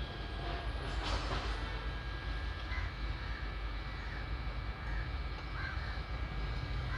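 Steady low background rumble with several short, faint bird calls, and a brief hiss about a second in.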